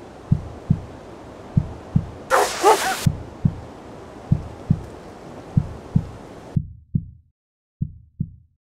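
Low double thumps like a heartbeat, a pair about once a second, with one dog bark about two and a half seconds in. A faint background hiss cuts off suddenly about two-thirds of the way through.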